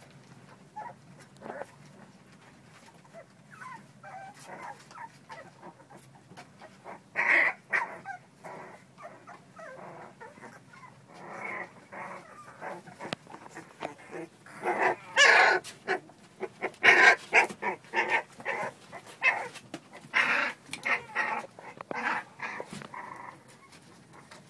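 American Bully puppies giving short, high cries as they play-fight. The cries come in scattered bunches, loudest around the middle and through the second half.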